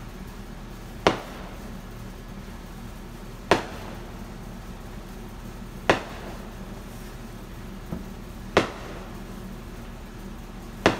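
Aerial fireworks going off: five sharp bangs about two and a half seconds apart, with a smaller pop between the fourth and fifth.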